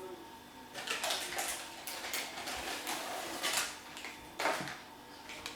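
Kitchenware clattering and scraping, about six short strokes, while corn flour is being added to a bowl of marinated chicken pieces.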